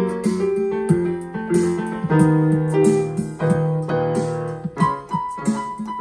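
Portable electronic keyboard (Yamaha) played by hand: a Brazilian tune, with melody notes moving over sustained chords and low bass notes.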